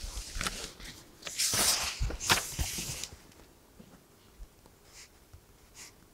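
Paper rustling for about three seconds as notebook pages are handled and turned, then faint pen scratching on paper.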